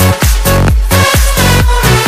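Electronic dance music with a steady beat and a sustained bass line.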